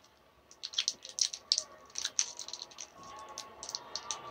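Keyboard typing: quick, irregular light key clicks, several a second. A faint steady background sound comes in about three seconds in.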